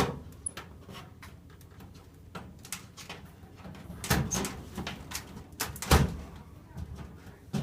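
Clicks and plastic knocks of LED T8 tubes being fitted into a fluorescent fixture's sockets and turned to seat, with two louder knocks about four and six seconds in.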